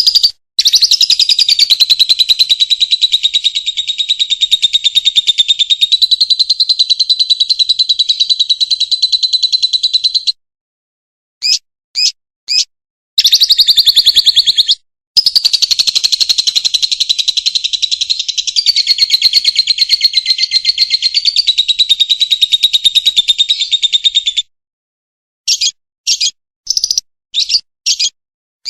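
Lovebird's long 'ngekek' chatter: a fast, high-pitched trill of rapid repeated notes held for about ten seconds, a few short chirps, then a second long trill of about ten seconds, ending in more short separate chirps.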